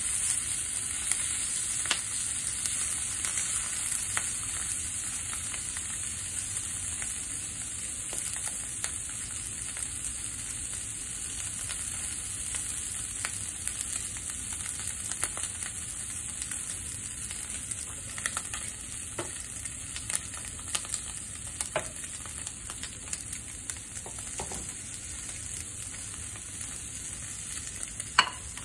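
Steak pieces and a fried egg sizzling in a nonstick frying pan: a steady high hiss with scattered pops, and one sharper click near the end.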